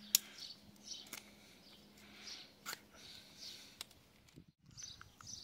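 A few sharp, light clicks of plastic wheel lug bolt caps being pried off and handled with a cap-removal tool, the first the loudest, over a faint background hiss.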